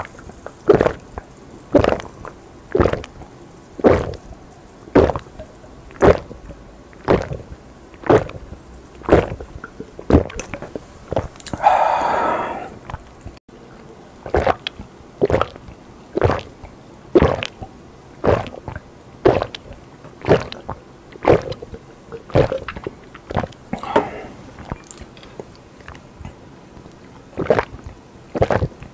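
Close-miked gulping as a man chugs a drink, one swallow about every second in a steady rhythm. There is one longer breathy sound about twelve seconds in.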